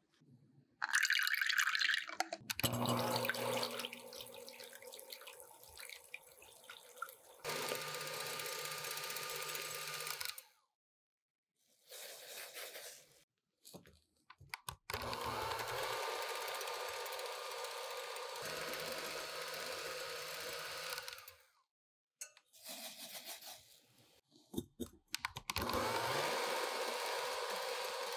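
Electric hand mixer whipping egg whites in a glass measuring jug, running steadily in several stretches of a few seconds each with abrupt breaks between them, as the whites go from foamy to thick. In the first few seconds, less even sounds of a hand whisk working batter in a glass bowl.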